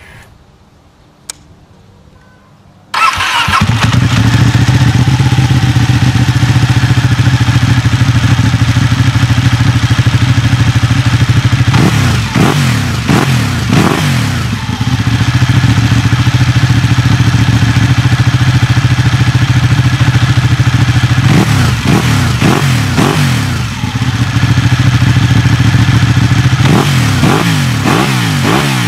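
A Ducati 1199 Panigale's twin-cylinder engine, breathing through a Termignoni exhaust, starts about three seconds in and idles loudly. It is blipped in three groups of quick revs, each rising and falling back to idle.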